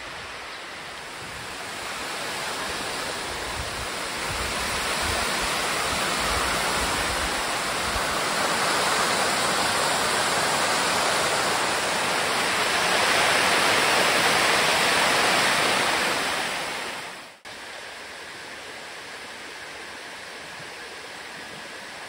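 Waterfall water rushing steadily down a cascade of calcium-carbonate (tufa) rock, growing louder over several seconds. It drops suddenly, a little after the middle, to a quieter steady rush of water.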